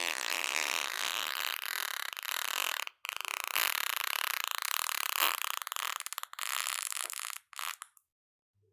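Fart sounds, thin and hissy: one lasting about three seconds, a longer one of about four seconds, and a brief one near the end, each cut off abruptly into silence.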